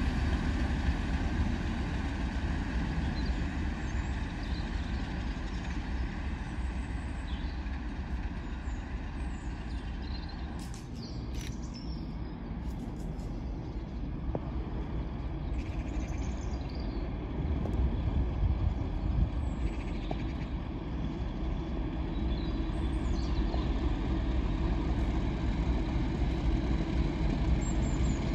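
Distant diesel locomotive rumble from a Class 37 and Class 50 pair, the deep steady sound of their English Electric engines heard from afar as the train approaches. It grows slowly louder in the second half.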